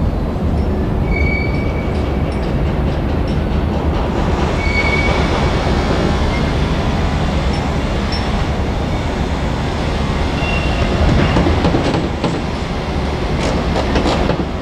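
Freight train rolling past on the rails with a steady rumble, short high wheel squeals now and then, and a run of rail-joint clicks near the end.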